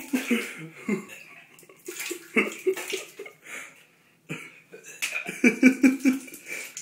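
A young man retching and vomiting into a toilet in several heaving bursts, the longest near the end, with vomit splashing into the bowl's water. He is sick from Grizzly wintergreen dip, which he says was too strong.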